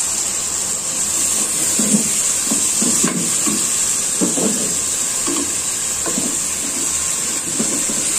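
Fish pieces sizzling in hot spice paste in a steel pot with a steady hiss, while a wooden spatula stirs them, scraping and knocking irregularly against the pot as the fish is sautéed in the masala.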